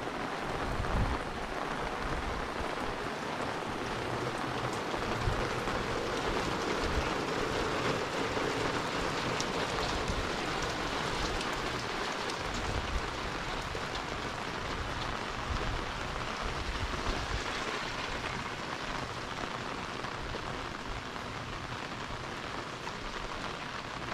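Heavy rain falling on a wet paved road and its surroundings: a steady, even hiss of downpour.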